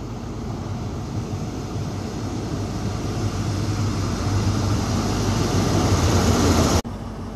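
A GWR High Speed Train's Class 43 diesel power car approaches and runs past close by with a steady low engine note. Wheel and rail noise grows steadily louder as it draws level, then the sound cuts off abruptly near the end.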